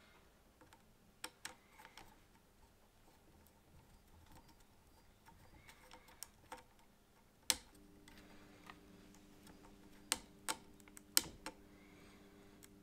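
Small screwdriver clicking and scraping on the screw terminals of a model-locomotive sound decoder as wires are clamped in: scattered faint clicks, the sharpest about seven and a half seconds in and a few more close together around ten to eleven seconds. From about halfway a faint steady hum sounds beneath.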